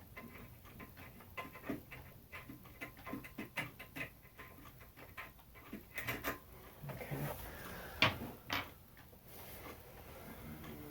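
Small metal clicks and ticks from screws being turned out of a ceiling electrical box with a screwdriver to free a fan mounting bracket, with two louder knocks about eight seconds in.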